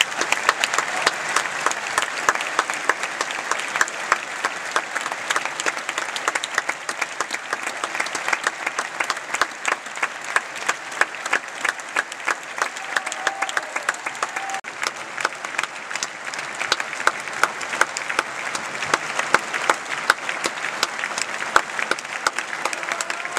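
Concert audience applauding steadily, many hands clapping at once.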